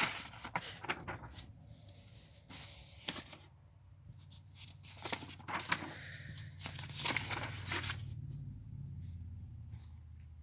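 Scattered sharp clicks and short scraping, rustling noises, with a low steady hum underneath.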